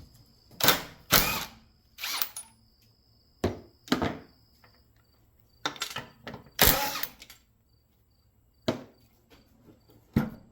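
Cordless impact driver running in about six short bursts, backing bolts out of a motor starter's brackets.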